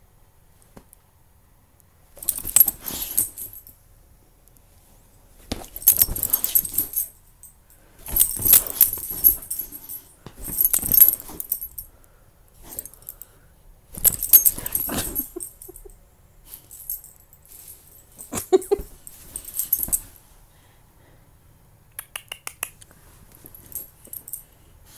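An Old English Bulldogge playing with a toy, in repeated bursts of a second or two, each a high rattling clatter with short quiet gaps between.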